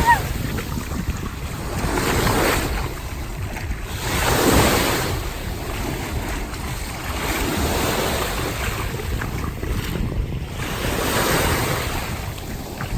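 Sea waves washing onto the shore, surging every few seconds, with wind rumbling on the microphone.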